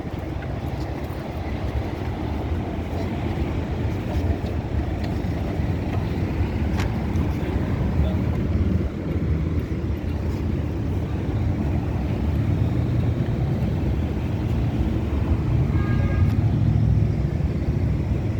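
Busy street traffic: a steady low rumble of passing cars, with a brief pitched sound about two-thirds of the way through.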